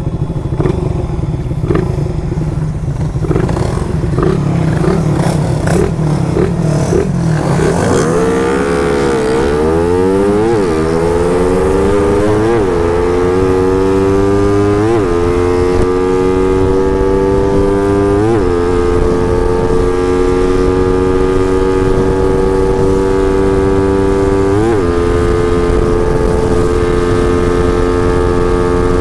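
Suzuki motorcycle engine and exhaust heard from the rider's seat under hard acceleration. It runs low and rough at first. From about eight seconds in, the pitch climbs steeply, dropping briefly at each of about five quick upshifts. Near the end it holds a steady high note at speed.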